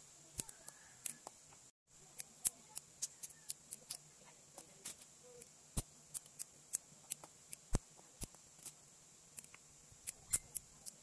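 Yard-long beans being snapped by hand into short pieces: a string of crisp, irregular snaps, several a second at times. The sound drops out completely for a moment about two seconds in.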